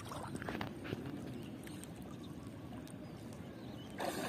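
Water running and lightly splashing, with a few faint clicks and a louder rush of water starting near the end.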